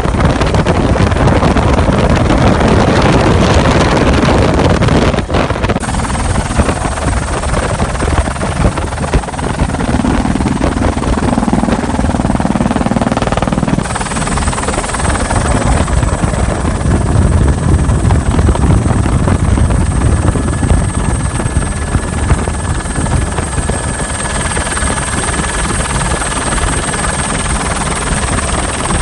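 Airbus AS350B3 single-turbine helicopter in flight, heard from the open-door cabin: a loud, steady rotor and engine noise mixed with wind rush. The sound changes abruptly about six seconds in and again near the middle, after which a thin high whine runs along with it.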